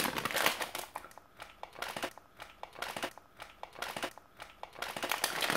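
Plastic sweet packet crinkling and crackling in irregular bursts as it is twisted and tugged, and near the end pulled at with the teeth to tear it open.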